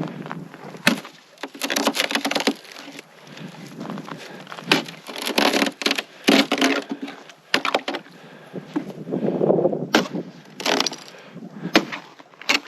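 Footsteps crunching through frozen, crusted snow, with an irregular walking rhythm of sharp crunches.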